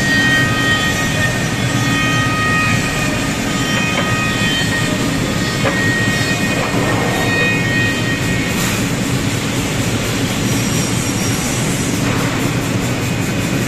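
Holztek Tectra-328F CNC panel saw running: steady loud machine noise with high whining tones in the first half and a brief sharper burst about eight and a half seconds in.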